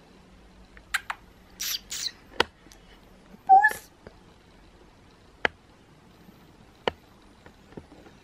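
A ginger cat gives one short meow about three and a half seconds in. Scattered sharp clicks and two brief hissing sounds come before and after it.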